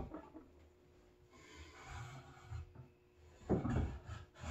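Solid wood timber-frame parts knocking and rubbing together as a beam's tenon is worked by hand into its joint, with soft scuffs in the middle and a heavier dull knock about three and a half seconds in.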